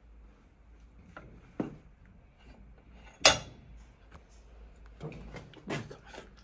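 Metal hand tools and parts handled on a workbench: scattered knocks and clicks, with one sharp metallic clack about three seconds in and a quick run of clicks near the end.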